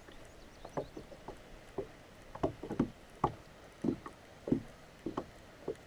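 Choppy river water slapping against a plastic kayak hull: short, irregular low knocks, about two a second, over a faint wash of water.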